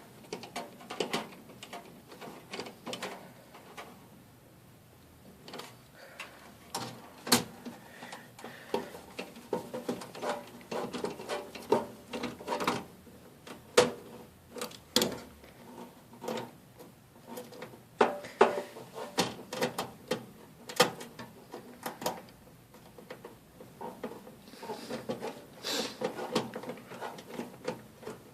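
Irregular clicks and taps of a screwdriver and small screws against a metal computer case as motherboard mounting screws are driven in by hand.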